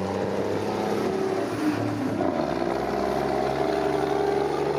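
Heavy lorry's diesel engine running hard under load as it drags a weight-transfer pulling sled, its note shifting about halfway through and then holding steady.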